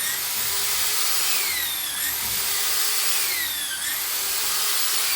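Power drill boring holes into an oak log for shiitake spawn. Its high whine sinks slowly as the bit cuts in and jumps back up about every two seconds, as the motor slows under load and recovers.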